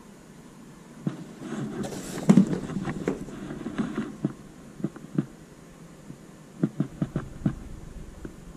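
Handling noise of caps and a cardboard box: rustling and bumping, with a loud thump a little over two seconds in, then scattered light taps and knocks as a foam-front trucker cap is turned in the hands.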